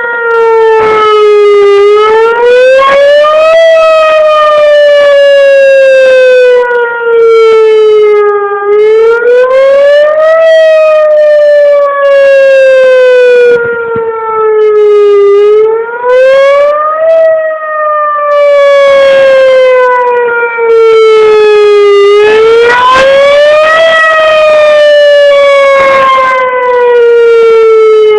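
Whelen Vortex R-4 outdoor warning siren sounding the Attack signal: a loud wavering tone that rises quickly over about a second and a half, then falls slowly for about five seconds, about four times over.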